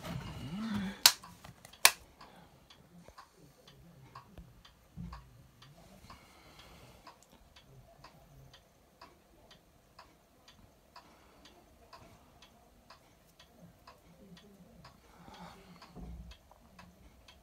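Faint, even ticking at about two ticks a second, after two sharp, louder clicks about one and two seconds in.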